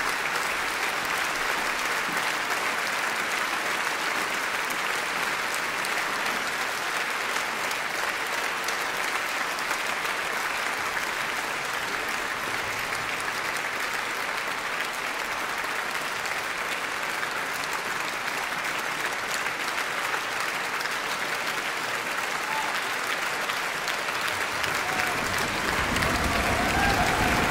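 A large concert-hall audience applauding steadily at the end of a performance, a dense, even mass of clapping. Near the end a louder, lower sound joins in.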